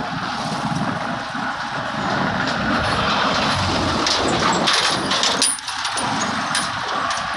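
Road traffic heard from a moving motorcycle: steady engine and road noise, with trucks and other motorcycles passing close by. A few light knocks come about four to five seconds in.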